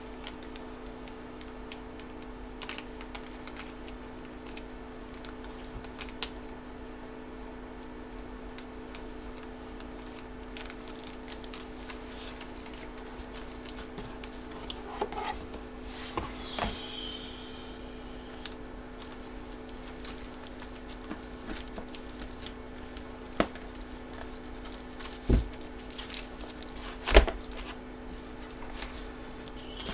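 Comic books being handled and slid back into plastic bags: scattered light rustles and clicks over a steady low hum, with two heavier thumps near the end.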